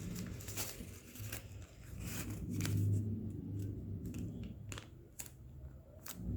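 A sheet of origami paper rustling and crinkling as it is handled and folded in half, with scattered short crackles.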